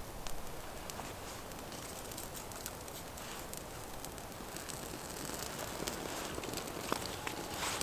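Small wood campfire crackling, with sharp snaps and pops that grow more frequent through the second half as the fire catches.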